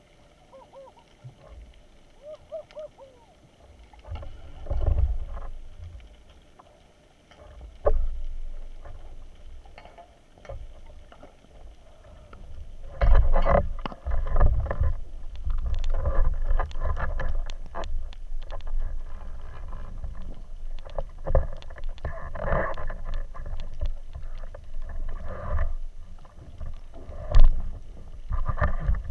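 Water splashing and sloshing around a camera held just under the sea surface, with bumps and knocks against the housing. Sparse and faint at first, it turns busier from about halfway through as the spearfisher handles the speared fish at the surface.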